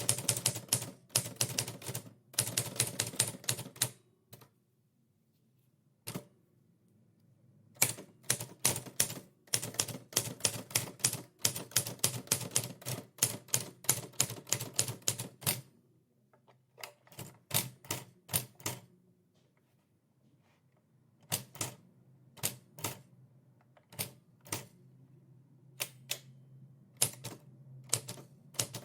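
Typewriter keys striking in fast runs of clacks, broken by pauses of a second or more; in the last third the strikes come singly and more spaced out.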